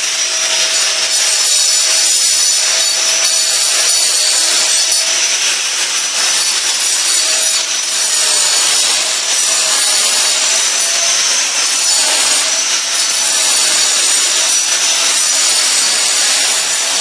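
Angle grinder cutting through a concrete floor threshold, running steadily under load with a whine that wavers slightly in pitch.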